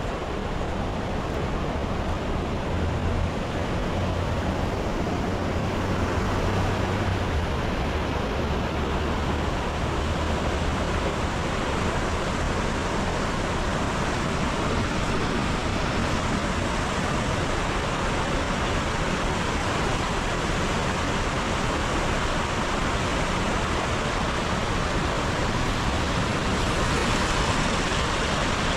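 Heavy rain falling steadily, an even hiss with no break. A low rumble sits under it for the first ten seconds or so.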